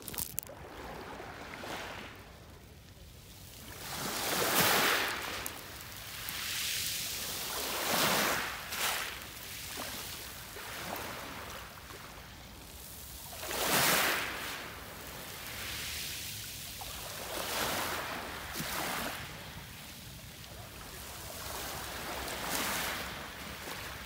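Small sea waves washing up onto a pebble beach, swelling and fading every few seconds.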